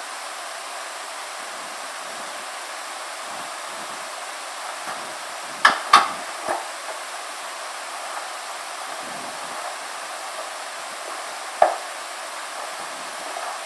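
Steady hiss with a few sharp clicks over it: a metal door handle and latch clicking twice in quick succession about halfway through, then a single knock near the end.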